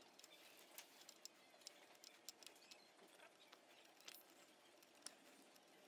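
Near silence, with faint scattered light clicks of a small bolt and metal bracket being handled as a 10 mm bolt is threaded in by hand.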